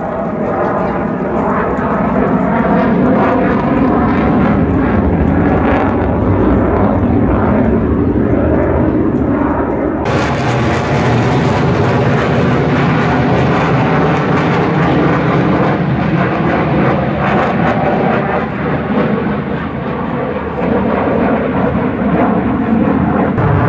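Military aircraft flying overhead: a loud, sustained engine rumble with a wavering, phasing tone that brightens abruptly about ten seconds in.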